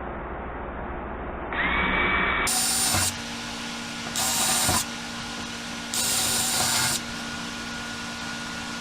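Power drill running in four short bursts while drilling fastener holes. The first burst rises in pitch as the drill spins up.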